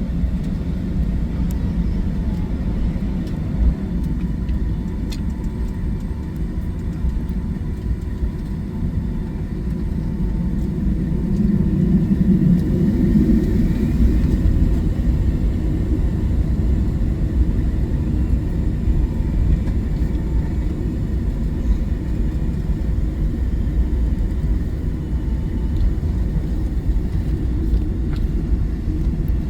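Boeing 757-200 cabin noise: a steady low rumble of engines and airflow, heard from inside the cabin, swelling for a few seconds about twelve seconds in.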